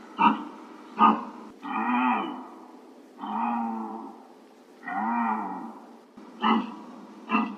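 Deer calling repeatedly: two short sharp calls, then three longer bleating calls about a second each whose pitch rises and falls, then two more short calls near the end.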